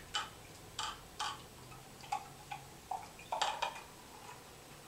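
Beer poured from a 22-ounce glass bottle into a glass, the tipped bottle neck glugging in a string of short, irregular clicks, the loudest about three and a half seconds in.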